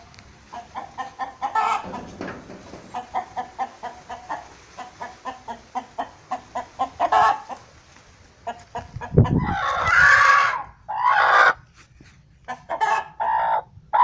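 Domestic chickens: a hen clucking in a quick steady series of short calls, then a loud drawn-out call about nine seconds in, followed by a few shorter loud calls near the end.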